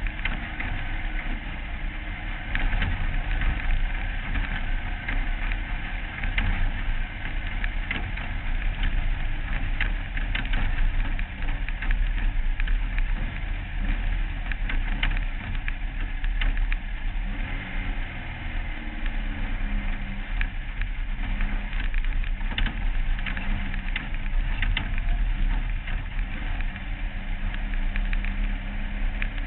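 Off-road race car's engine heard from an onboard camera, running with constant clattering and rattling over the dirt track. The engine note rises and falls, then settles to a steadier low note near the end as the car slows.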